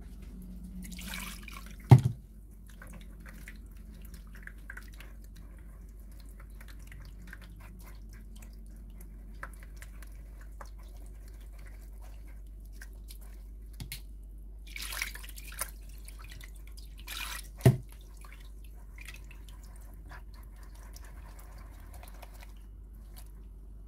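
Hands squeezing and rubbing wet ground maize through a chiffon-cloth sieve over a bowl, with faint squelching and liquid dripping as the starch water is pressed out. Two sharp knocks stand out, one about two seconds in and one about three-quarters of the way through.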